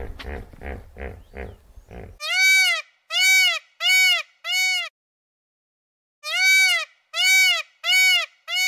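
Indian peafowl (peacock) calling: two series of four loud calls, each about half a second long and arching up then down in pitch, with a silence of about a second and a half between the series. Before the calls, about two seconds of short low pulses, about three a second.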